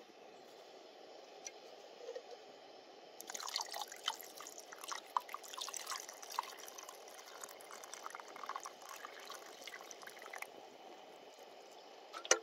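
Water poured into a camping pot packed with fresh oregano sprigs, splashing and trickling over the leaves to make oregano tea. The pouring starts about three seconds in and stops about two seconds before the end.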